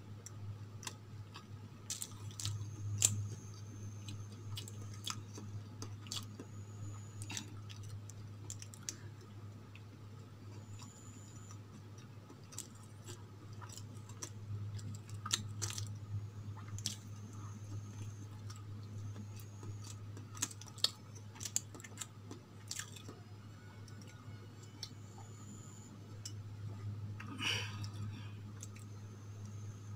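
Close-miked chewing and wet mouth sounds of a person eating soft idli with chutney, with scattered sharp clicks over a steady low hum.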